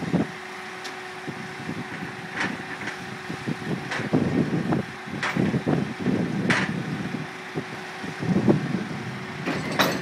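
Pile driver hammer striking a steel beam pile as driving begins: sharp metallic blows every second or two at uneven spacing, over the steady drone of the rig's engine.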